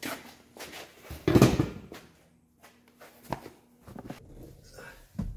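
Knocks and clunks of a freshly welded steel angle piece being picked up and handled on a wooden workbench, with footsteps. The loudest is a heavy thump about a second and a half in, with a few lighter knocks after it.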